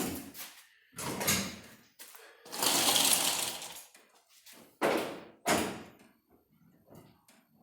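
Workshop handling noises: a run of knocks and scrapes, the longest a rough scraping noise of about a second near the middle, then two sharper knocks and a few faint clicks.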